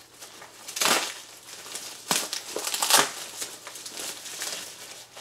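Plastic bubble wrap being handled and pulled open by hand, crinkling and rustling, with sharper louder crackles about one, two and three seconds in.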